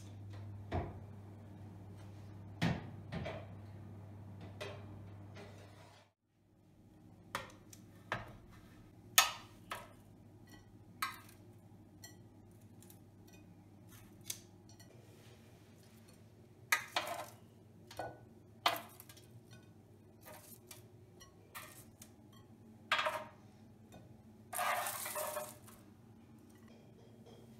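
Kitchen handling sounds: separate clinks and knocks of dishes and utensils being set down and moved, with a brief scraping rustle near the end. A steady low hum runs under the first few seconds and stops about six seconds in.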